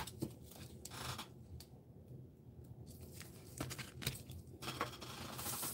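Faint handling sounds of trading cards and a rigid clear plastic toploader: light clicks and short scrapes as a card is slid into the sleeve.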